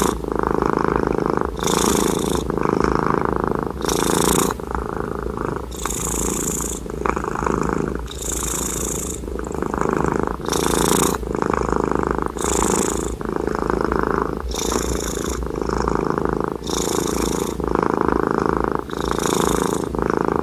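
Sleeping house cat snoring: a continuous, purr-like rasp that changes character about every second as it breathes in and out, repeating steadily.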